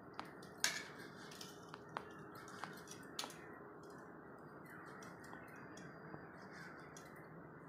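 Kitchen knife scoring raw chicken on a stainless steel plate: a handful of sharp clicks as the blade taps the plate, most in the first three seconds and one more about six seconds in, over a faint steady hiss.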